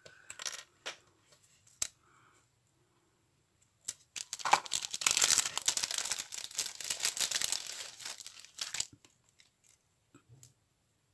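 A few light clicks and taps of small pieces being set down, then about five seconds of dense crinkling, starting about four seconds in, as a plastic packet of chipboard embellishments is handled.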